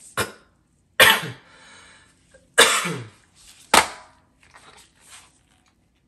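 A man coughing hard, four coughs over about four seconds, the middle three the loudest.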